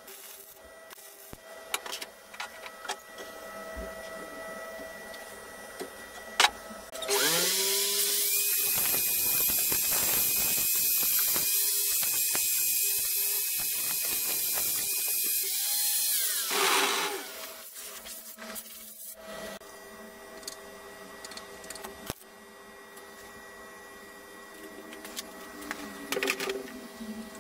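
Angle grinder spinning up about a quarter of the way in, grinding a metal rod held in a drill chuck for about nine seconds with a steady high whine, then winding down. A quieter steady hum with scattered clicks before and after.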